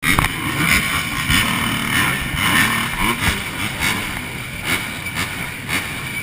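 Several motorcycle engines running and revving together, their pitches rising and falling over one another.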